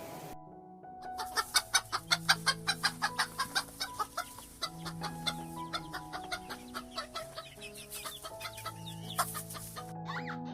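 Chicken clucking in a quick run of short clucks, about five a second, loudest early and thinning out near the end, over background music with held notes.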